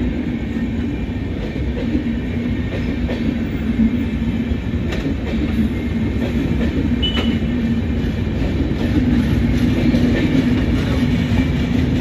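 Express train's passenger coaches passing close by at speed: a steady rumble of wheels on the rails with a light clickety-clack over the rail joints.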